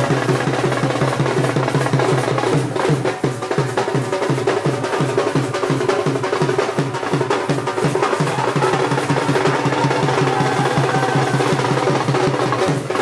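Dhol drumming at a fast, steady bhangra beat, mixed with music that holds steady sustained tones underneath.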